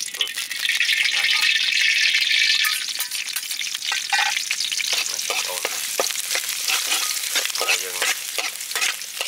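Beef and bael fruit sizzling in hot oil as they are stir-fried, with a loud hiss for the first few seconds that then settles. Throughout, a spatula clicks and scrapes against the pan as it stirs.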